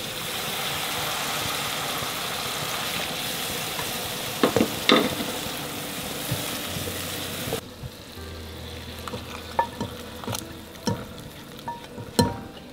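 Sautéed garlic, candlenut and scallion paste sizzling in a frying pan as water is ladled in and a spatula stirs it, with a couple of sharp knocks of utensils on the pan about four and a half seconds in. The sizzle cuts off abruptly about halfway through, leaving scattered clicks and scrapes of the spatula on the pan and a louder knock near the end.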